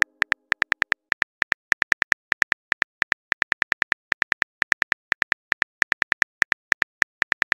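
Simulated phone-keyboard typing: rapid, uneven keystroke clicks, several a second, as a text message is typed out letter by letter.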